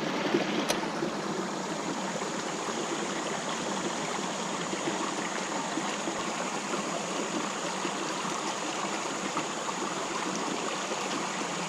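Creek water running steadily over the bed, an even rush of flowing water.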